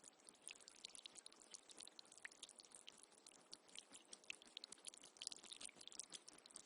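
Faint water trickling and dripping: a dense, irregular patter of small splashes over a soft hiss.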